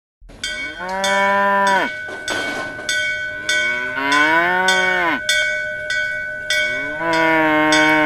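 Cattle mooing three times, each moo long and dropping in pitch at its end. Under the moos a bell is struck in a steady beat, about every half to two-thirds of a second, its ringing carrying between strikes.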